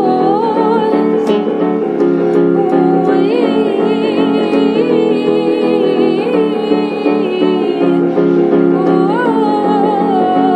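Pop song in a wordless passage: sustained keyboard and piano chords under a high, wavering melody line.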